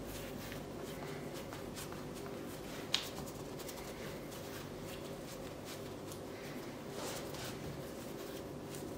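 Hands pressing, folding and rolling baguette dough on a floured wooden worktop: soft dry rubbing and patting, with one sharp click about three seconds in.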